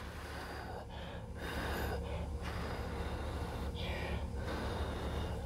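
A person blowing long breaths from close range onto wet acrylic paint to push it across a canvas. The rushing air comes in several long blows with brief breaks between them.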